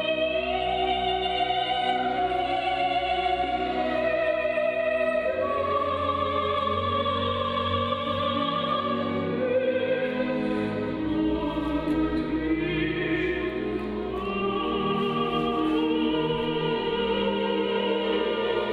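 Classical vocal music: operatic or choral voices holding long notes with a wavering vibrato, over an orchestral accompaniment, the notes shifting every few seconds.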